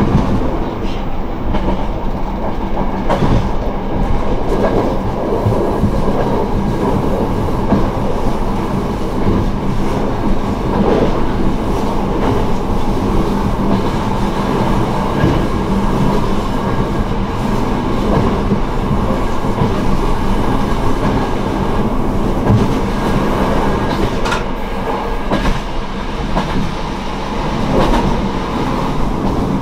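Diesel railcar running on the line, heard from inside the car: the underfloor diesel engine hums steadily beneath the rumble of the wheels, with scattered clicks as they pass over rail joints.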